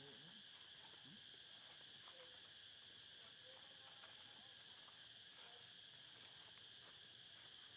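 Near silence with a faint, steady, high-pitched insect drone running unbroken.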